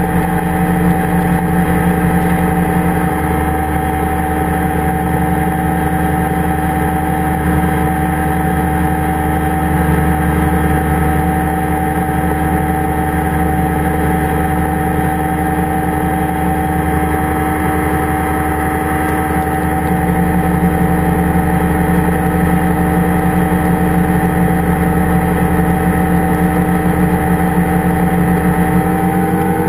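Powered parachute's engine and propeller running steadily at cruise power, heard from close up on the airframe. The pitch holds constant throughout.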